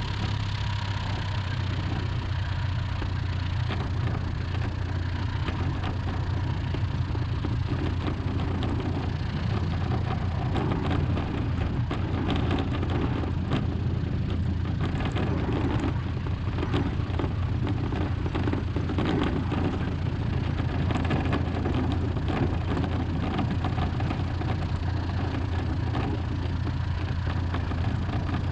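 Jodel DR1050 light aircraft's four-cylinder piston engine running at low power with the propeller turning, a steady drone while it taxis on a dirt strip, with scattered light ticks and rattles through the middle.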